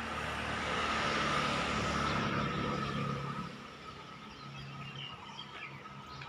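A motor vehicle passing by, its engine and tyre noise swelling over the first two seconds and fading away by about three and a half seconds in.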